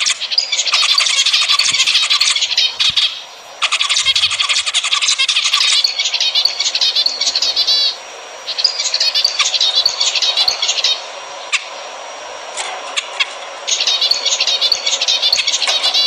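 Zebra finches singing and calling: rapid, buzzy, high-pitched phrases in dense bouts, broken by short pauses and a quieter spell past the middle.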